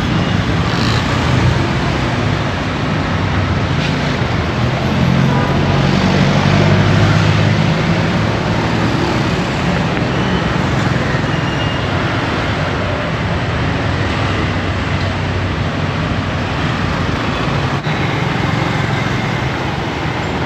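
Busy city street traffic: motorbike and car engines running close by in a steady din, with a louder low engine hum about five to eight seconds in.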